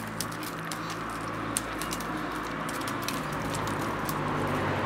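Light irregular clicks and crackles of wetted reed stalks being bent and woven by hand into a basket base, over a steady low hum that slowly grows louder.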